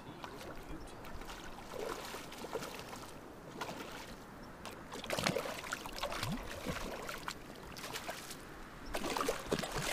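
Irregular splashing and sloshing at the water's surface as a hooked fish thrashes in the shallows, louder about five seconds in and again near the end.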